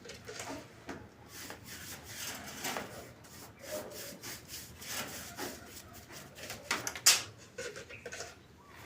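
Irregular, rough scraping strokes, several a second, with one sharp knock about seven seconds in.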